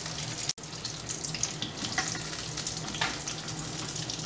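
Hot oil sizzling and crackling steadily as battered tomato slices deep-fry in a kadhai, with a couple of light clicks from the spatula against the pan. The sound drops out for an instant about half a second in.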